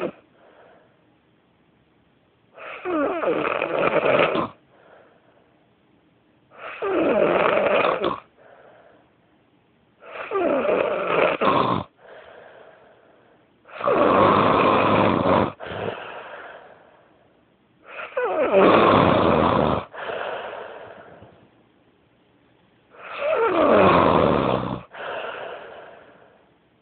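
A man snoring very loudly in his sleep, six long snores spaced about four to five seconds apart. Each snore slides down in pitch, and several break off for a moment near the end before a short final catch.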